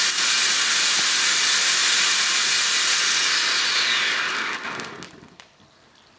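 Blackboxx Feuerkegel No. 2 silver volcano fountain spraying sparks with a loud, steady hiss. The hiss thins out and dies away about four to five seconds in as the fountain burns out, with a few crackles at the end.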